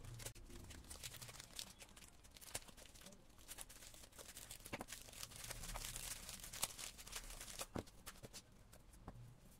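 Faint crinkling and tearing of a printed plastic wrapping being pulled off a small cardboard box by hand: a run of small crackles and rustles, a little louder midway.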